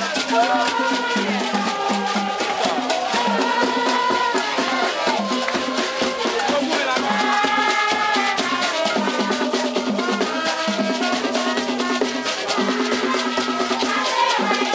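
Haitian rara band music: drums and shaken rattles keep up a dense beat under held and gliding melodic lines.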